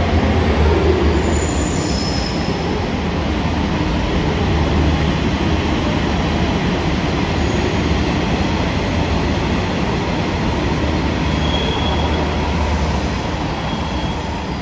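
A train running on the rails: steady, loud running noise of wheels and track, with a few brief high-pitched wheel squeals.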